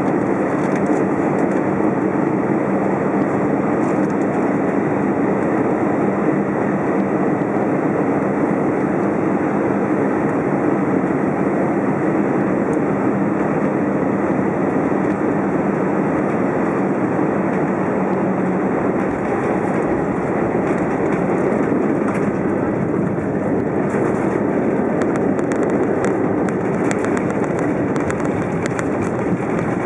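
Airbus A320 cabin noise on final approach: steady engine and airflow noise beside the wing-mounted engine, with a faint hum. About two-thirds of the way through, a deep rumble joins as the main wheels touch down and roll along the runway.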